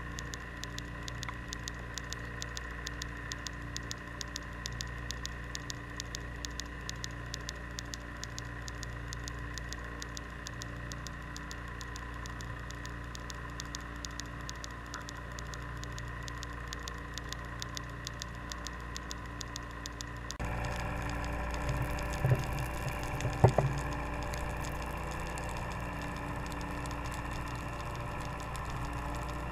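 Underwater sound picked up by a submerged GoPro: a steady low hum with a few faint steady tones and a rapid, fairly even ticking. About twenty seconds in it changes abruptly to a louder, deeper hum, with a few knocks a couple of seconds later.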